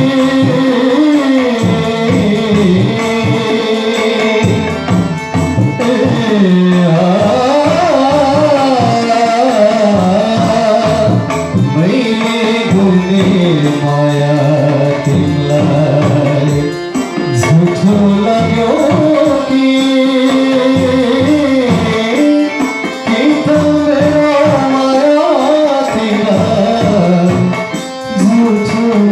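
A Nepali song: a voice singing a gliding, ornamented melody over a hand-drum rhythm and instrumental accompaniment.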